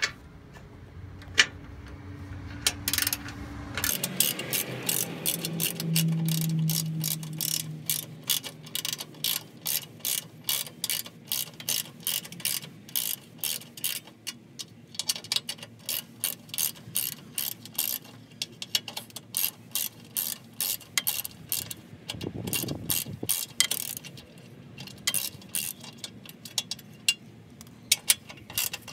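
Hand ratchet wrench clicking in quick runs with short pauses while the bolts holding an evap canister under a Jeep are loosened.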